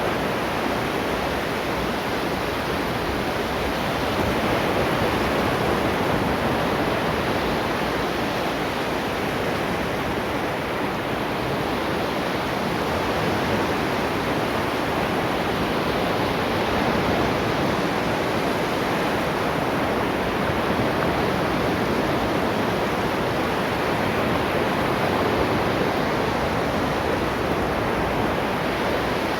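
Ocean surf washing onto the shore: a continuous rushing wash of waves with no single crash standing out, swelling slightly a few times.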